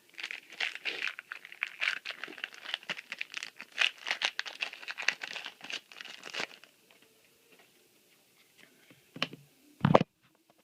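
A foil trading-card booster pack crinkling and tearing as it is opened, a dense run of crackles for about six and a half seconds. It then goes much quieter, with a few light clicks and one dull knock near the end.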